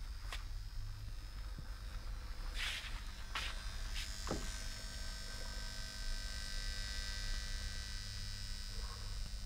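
Steady mains-frequency electrical hum and buzz from a powered salt-water conduction rig with a power dimmer. A few short clicks and scrapes come between about two and a half and four and a half seconds in.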